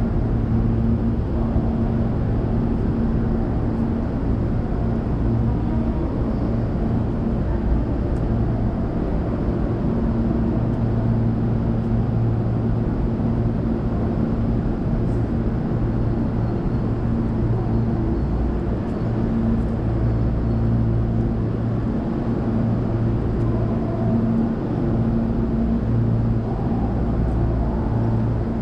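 Steady low hum from a Hankyu electric train standing still, its onboard equipment running, with a deeper rumble underneath. The hum tones fade and return slightly, with no sign of the train pulling away or braking.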